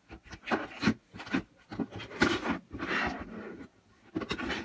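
Upturned plastic bowls being shuffled on a tabletop: a run of hollow knocks and clunks as they are set down and bumped, with stretches of scraping as they are slid across the surface.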